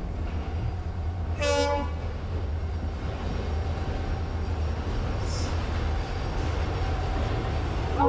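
Locomotive-hauled passenger train rumbling steadily across a steel girder bridge. A single short, high pitched hoot sounds about a second and a half in.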